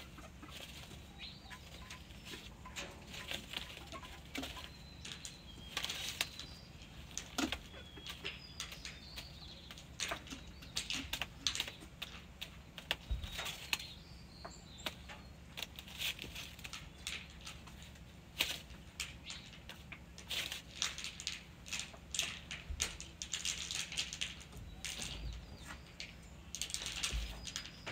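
Red junglefowl rooster preening, his feathers rustling in many quick, irregular scratchy rustles, over a steady low hum.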